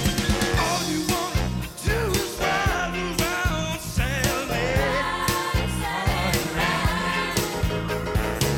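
A song with a singing voice over a band with a steady beat.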